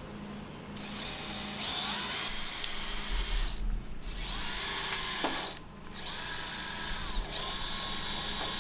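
Power drill boring into the steel of a trailer axle, running in three spells with two short pauses, the bit squealing with a high whine that shifts in pitch as it cuts.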